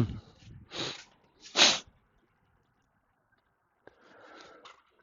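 A person's short falling vocal sound followed by two sharp, breathy bursts, the second the loudest. After them comes a quiet stretch, then faint rustling near the end.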